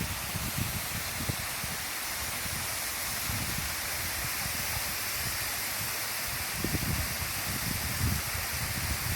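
Waterfall giving a steady, even rush of falling water. Irregular low rumbles and thumps come and go on top of it, loudest about seven to eight seconds in.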